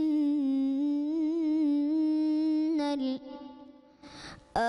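A boy's voice chanting Quran recitation into a microphone: one long held note with small ornamental wavers in pitch, breaking off about three seconds in. After a short pause with a breath, he starts the next phrase just before the end.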